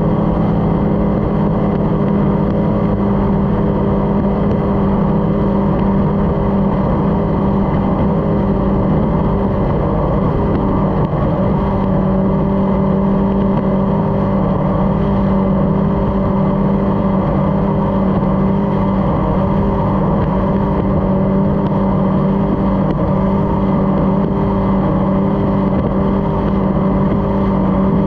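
Racing powerboat's engine heard from onboard, running steadily at speed with one held pitch and a slight waver about ten seconds in.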